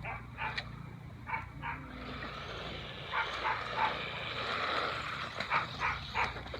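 A dog barking in short, quick, repeated yips, with a steady rushing noise joining about two seconds in.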